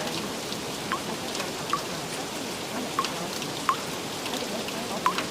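Steady rain with a handful of separate drops plinking in short falling notes through it.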